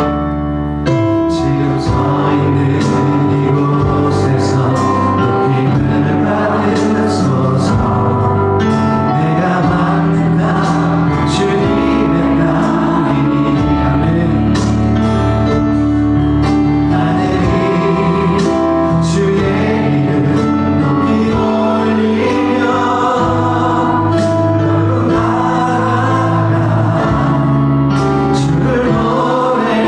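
Contemporary worship song sung by a group of voices with a band, held notes over a steady accompaniment with regular cymbal hits.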